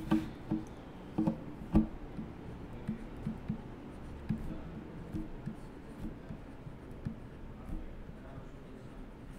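Stylus tapping and scratching on a tablet as words are handwritten: a string of soft taps, with a few louder knocks in the first two seconds.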